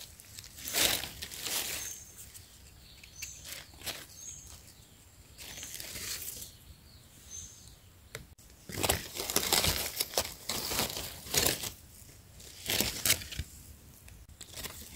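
Dry fallen leaves crackling and rustling in irregular bursts as someone walks and searches through the leaf litter, with a few faint short high chirps in the first half.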